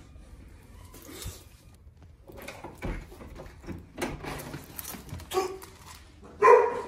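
Faint shuffling, clicks and soft knocks at a front door as it is opened, then a dog barks loudly near the end.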